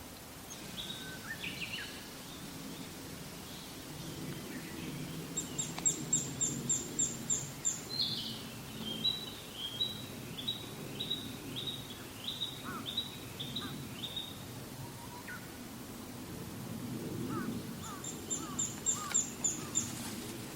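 Japanese pygmy woodpecker giving an uncommon call: runs of short, evenly spaced high notes, about four to five a second. It calls three times, and the middle run is slower. A steady low rumble of background noise runs underneath.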